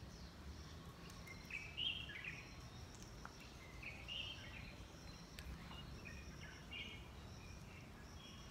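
Birds chirping in short calls over a steady low background rumble, with the clearest calls about two and four seconds in and again near seven seconds.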